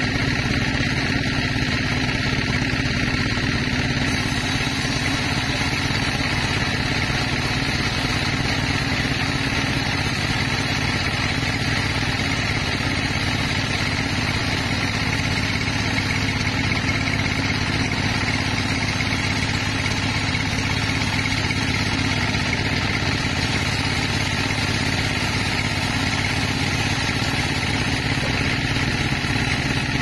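Large band sawmill running steadily as its blade saws lengthwise through a black teak log: a continuous machine drone with the hiss of the cut, holding an even level throughout.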